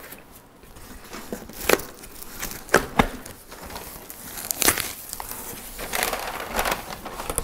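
Cardboard shipping box being pulled open by hand, its stapled flaps scraping and creasing, with several sharp snaps, the loudest about two to three seconds in and again near five seconds.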